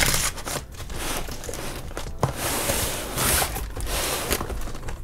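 Hands working at a taped cardboard shipping box: crinkling, scraping and tearing of packing tape and cardboard as a box cutter is used on it, with a few sharp clicks.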